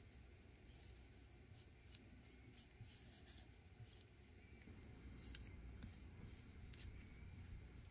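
Faint scratching strokes of a small flat paintbrush working a coating onto a cast iron part, with one small click about five seconds in.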